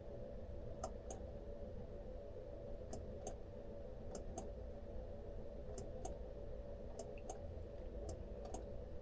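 Computer mouse clicking, a dozen or so sharp clicks scattered through, many in quick pairs, over a faint steady hum.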